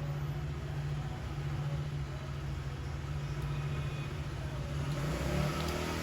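Steady low mechanical hum over background noise, with no distinct handling sounds.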